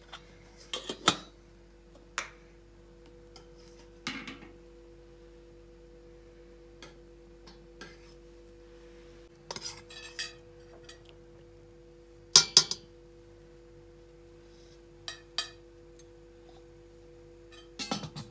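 Metal ladle and spoons clinking against a stainless-steel pot, its lid and ceramic bowls as food is dished out. The sharp clinks come singly and in small clusters, loudest about twelve seconds in, over a steady faint hum.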